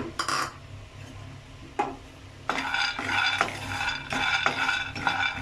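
Peanuts being stirred in a dry pan while they roast, rattling and scraping against the metal. A couple of sharp knocks, then a run of stirring strokes in the second half.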